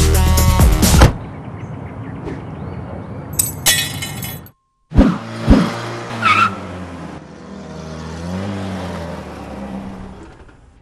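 Music cuts off about a second in, giving way to car sounds: an engine running, two sharp knocks near the middle, then the engine's pitch rising and falling toward the end.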